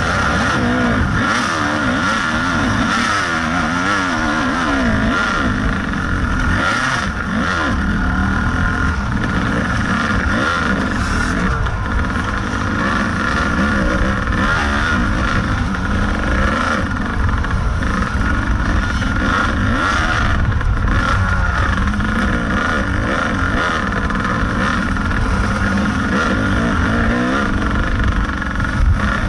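Kawasaki KDX 220 two-stroke single-cylinder dirt bike engine under way on a trail, its pitch rising and falling continually as the throttle is opened and closed.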